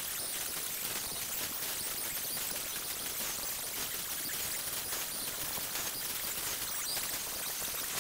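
Angle grinder running steadily against a steel weld, grinding down a welded rust-repair patch on a car's speaker tray; a continuous grinding hiss with sparks flying.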